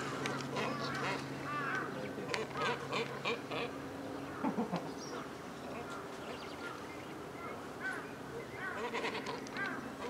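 Several birds calling around a pond: short arching calls and chirps repeated in quick clusters, busiest in the first few seconds and again near the end. A low steady hum runs under them and stops about a third of the way in.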